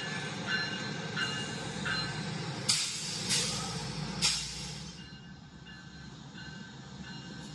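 Train sounds: a steady rumble of wheels on track with short recurring squeals, and three brief hissing bursts between about three and four and a half seconds in, after which the sound gets quieter.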